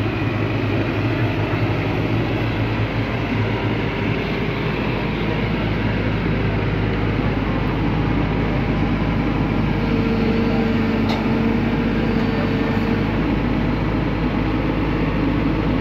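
Kobelco crawler excavator's diesel engine running steadily under load as the machine tracks up a ramp onto a flatbed truck, with track and machinery noise. A whine joins in about ten seconds in and fades a few seconds later.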